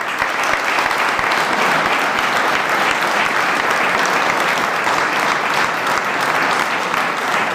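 Crowd applauding, a steady dense clapping that keeps going.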